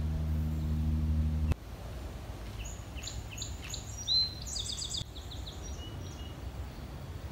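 A low, steady hum cuts off abruptly about one and a half seconds in. Then a songbird sings a run of high chirps and short trills in woodland, with one louder chirp about four seconds in, over a quiet outdoor background.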